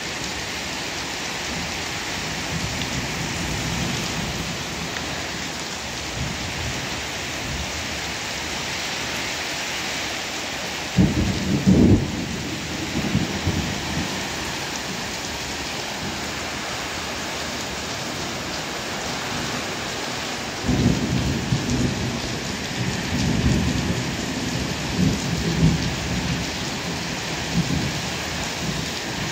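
Heavy rain pouring steadily onto a paved car park and parked cars. A sudden loud crack of thunder comes about eleven seconds in, and a longer rolling rumble of thunder follows from about twenty-one seconds for several seconds.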